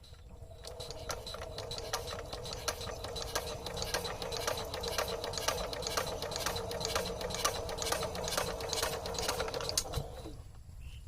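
Sewing machine running steadily, a hum with rapid regular ticking, then stopping about ten seconds in.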